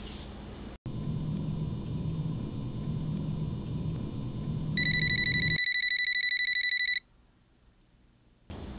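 An electronic ringer trills rapidly and loudly for about two seconds, then cuts off abruptly. Before it, a low pulsing hum with faint regular ticks plays and stops about halfway through.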